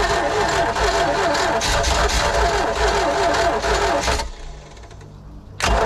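MerCruiser 3.0L four-cylinder marine engine running on a shot of starting fluid, with no fuel yet reaching the carburettor. Its sound drops off sharply about four seconds in, then comes back abruptly near the end.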